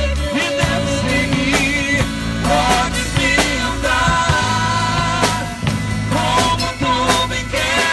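Band music with a drum kit keeping a steady beat, a sustained bass line, and a wavering melody line above, with no lyrics distinguishable.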